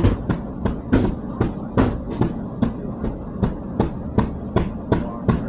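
Tiles being chipped off a bathroom wall: sharp knocks, about two or three a second, in an even rhythm.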